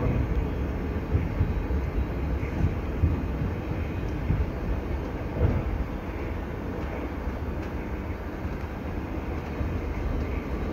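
Passenger train running along the track: a steady low rumble of wheels on rails, with a few short knocks in the first half.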